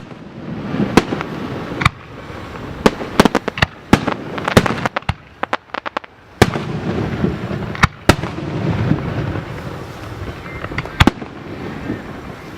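Fireworks display: aerial shells bursting in sharp bangs at irregular intervals, with a quick string of crackling pops about four seconds in.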